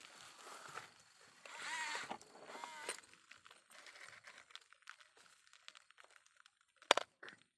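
Rustling and crunching of gravel and plastic as a toddler handles a toy RC excavator, with short high warbling vocal sounds about two seconds in and a sharp click near the end.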